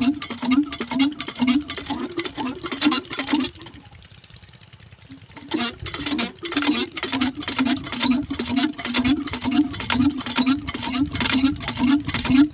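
Hand pump on a tube well being worked in quick, even strokes, about three a second, with a clank and a short water gulp on each stroke. It stops for about two seconds roughly a third of the way through, then picks up again at the same pace.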